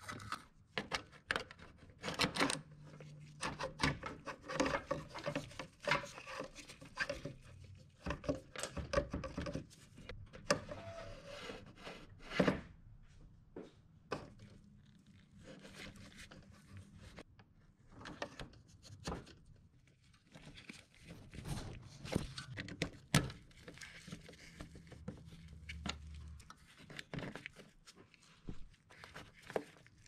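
Hands working a speedometer cable through the firewall: irregular clicks, knocks and scraping of the cable housing, rubber grommet and plastic fittings, with a sharper knock about twelve seconds in and another about twenty-three seconds in.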